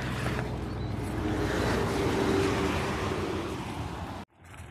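Road traffic noise from a vehicle passing on the highway, swelling to a peak about two seconds in and fading, then cutting off suddenly near the end.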